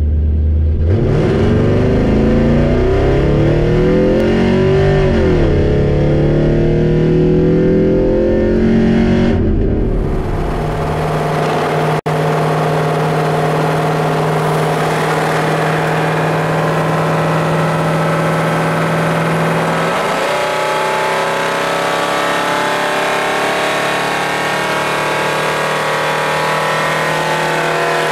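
Car engine accelerating, its pitch climbing, dropping at a gear change about five seconds in and climbing again; from about ten seconds in it settles into a steady drone at cruising speed, heard from inside the cabin.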